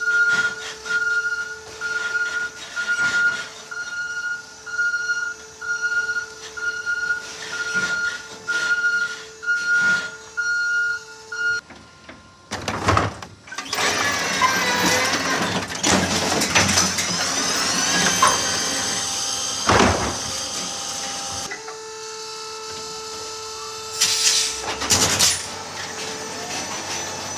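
Electric Heil side-loader refuse truck at work. For the first dozen seconds a warning beeper sounds regular short beeps over a steady electric hum. Then the automated arm lifts and dumps a recycling cart, with rising and falling electric motor whines and a long clatter of recyclables tipping into the hopper. The steady hum returns after about 21 seconds, with a few knocks near the end.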